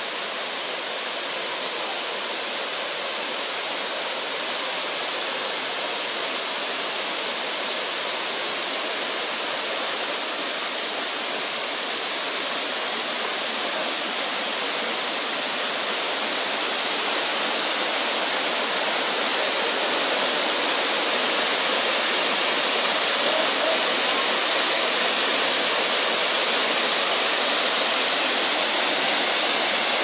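Waterfall pouring into a rock pool: a steady rush of falling water that slowly grows louder.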